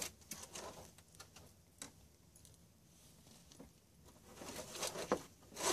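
Soft rustling and scattered light clicks of hands pushing polyester fibrefill stuffing into a doll's cloth body. It is quietest in the middle, and the rustling grows louder near the end.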